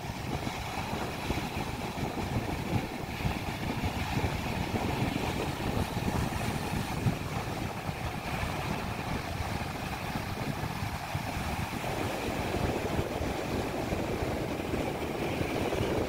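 Surf breaking on a rocky shore, mixed with wind buffeting the microphone: a steady rushing noise with a low, fluttering rumble.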